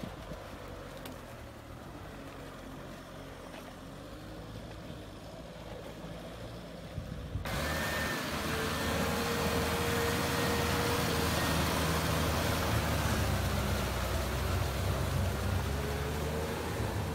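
Kubota M6040SU tractor's diesel engine running steadily under load as it pulls a rotary tiller through a flooded rice paddy. About halfway through the sound jumps suddenly louder and closer, with added rushing noise from the churning mud and water.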